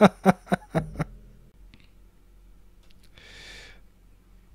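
A fast flurry of martial arts film punch-and-kick impact sound effects, about five sharp hits in the first second. A brief hissing swish follows about three seconds in.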